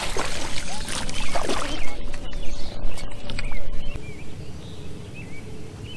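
Water splashing as a hooked largemouth bass thrashes at the surface beside the boat, loudest in the first two seconds. Small birds chirp throughout, heard more plainly once the splashing stops.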